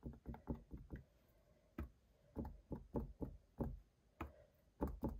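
Cotton swab (Q-tip) dabbing dots of acrylic paint onto a stretched canvas: a run of short, soft taps at an uneven pace, a few per second.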